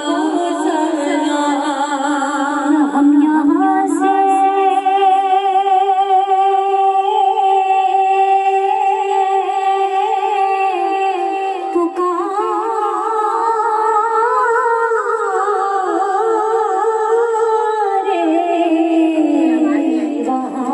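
Women's voices singing a devotional naat in unison without instruments, in long held phrases with a wavering vibrato, carried through the hall's microphones.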